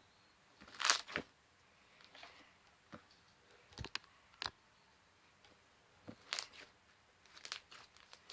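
Slime being squeezed and pressed by hand, making short crackling pops and clicks in irregular clusters with quiet gaps between them. The loudest burst comes about a second in.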